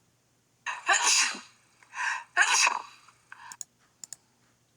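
Several voiced 'ah-choo' sneezes in a row, the loudest about a second in and the last one small.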